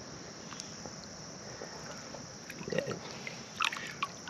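Shallow river water sloshing around a common carp held by hand, with a few small splashes about three and a half seconds in as the fish kicks free. A steady high insect chirr runs underneath.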